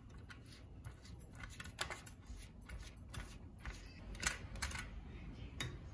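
Silicone pastry brush dabbing and scraping melted butter across an aluminium baking tray: a string of faint light clicks and taps, with a few sharper knocks about four seconds in.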